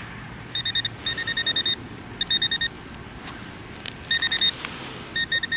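Handheld metal-detecting pinpointer beeping rapidly in short runs at one fixed high pitch, about five runs. It is sounding off the metal detector stand next to the hole, not a target, which the detectorist puts down to a weak battery.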